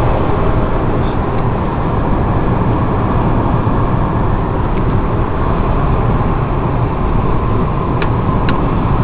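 Steady rumble of a moving car, road and engine noise, with two short clicks near the end.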